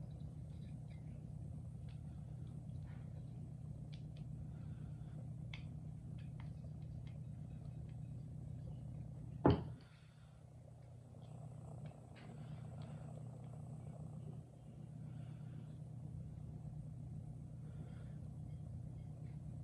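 Small clicks and taps of lamp parts and wire being handled during rewiring, with one sharp knock about halfway through, over a steady low hum that briefly drops out just after the knock.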